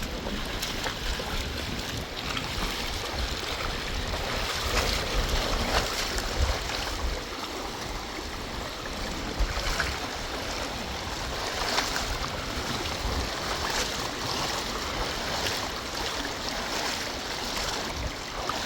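Steady rushing of a swollen, high-running river, with gusts of wind rumbling on the microphone.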